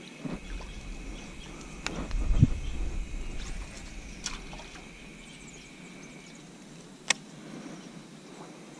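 Quiet outdoor ambience: a faint steady high tone that stops about six seconds in, a low thump and rumble about two seconds in, and scattered small clicks, with one sharp click about seven seconds in.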